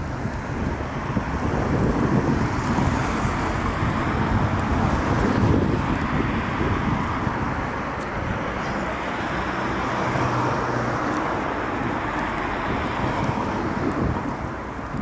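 Road traffic on a town street: cars driving past, a steady wash of engine and tyre noise that swells twice as vehicles go by.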